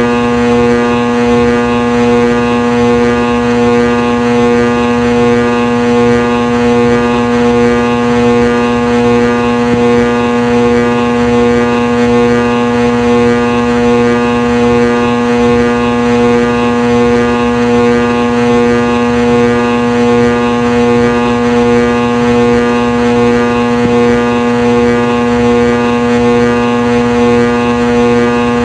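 Ceiling fan motor buzzing: a steady, unchanging electrical hum with a strong low tone and a stack of overtones above it.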